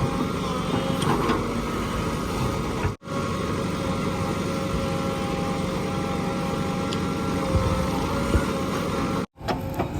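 JCB 3DX backhoe loader's diesel engine running steadily while working. The sound drops out for an instant twice.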